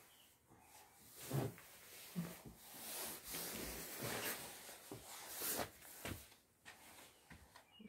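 Soft knocks and rustling from a handheld camera being carried while walking through the rooms, with a longer rustling stretch in the middle.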